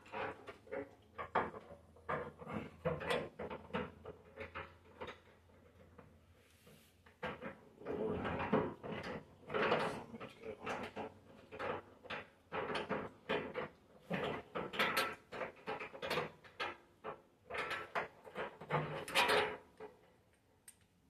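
Hand tools and metal hood hardware clicking, knocking and scraping irregularly as the side of a 1937 Dodge pickup's butterfly hood is cinched down at its turnbuckle, with longer rasping stretches in the second half.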